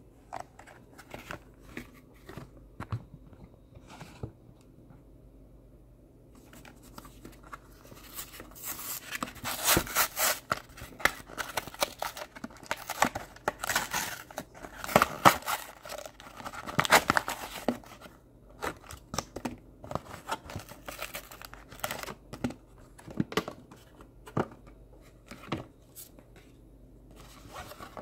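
A trading-card blister pack being torn open by hand: its plastic blister and cardboard backing rip and crinkle. The tearing is densest and loudest through the middle, with scattered handling clicks and rustles before and after.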